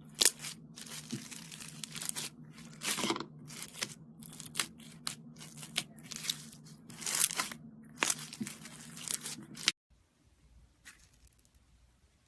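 Foam slime being stretched and squeezed, giving irregular bursts of crackling and tearing sounds. The crackling stops abruptly a little before the end, leaving only a few faint ticks.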